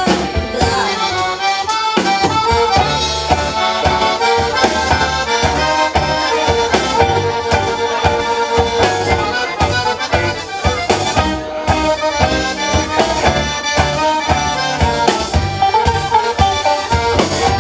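Instrumental break in a song: a busy melody line over a steady beat with bass, stopping abruptly at the end.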